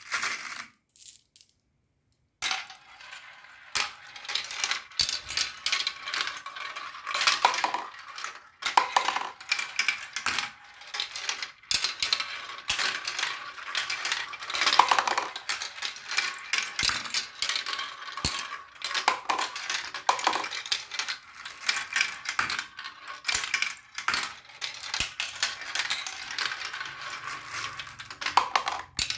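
Many marbles rolling and clattering down a marble run, a dense, continuous stream of small clicks and clinks that starts after a short silence at the beginning.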